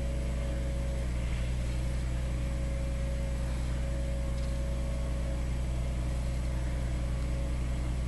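Steady low hum with a faint thin tone above it, unchanging throughout, with no distinct event.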